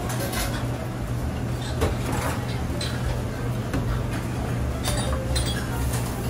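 Commercial kitchen ambience: a steady low machine hum under scattered clinks and knocks of utensils and stainless-steel pans and containers.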